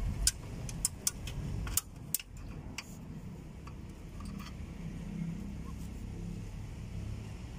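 Sharp metallic clicks and clinks from brake-shoe parts being fitted by hand on a drum-brake backing plate: a quick irregular series in the first three seconds and one or two more later, over a low steady rumble.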